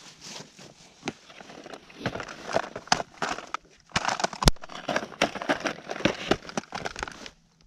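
Hard plastic lure boxes being handled and knocked together: a run of clicks, knocks and rattles, the sharpest about four and a half seconds in.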